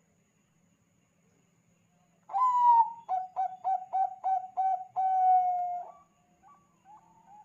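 Zebra dove (Thai-bred perkutut bangkok) cooing. After a quiet start, a loud first note about two seconds in is followed by a quick run of about six short coos and one longer drawn-out note, then fainter coos near the end.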